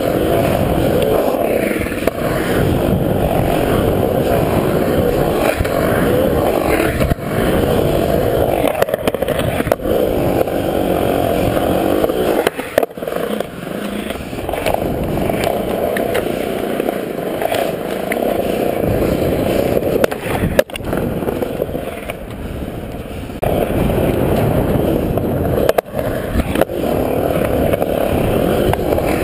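Skateboard wheels rolling and carving over a concrete bowl, heard close up, a steady rolling rumble that rises and dips with speed. It is broken a few times by sharp knocks from the board.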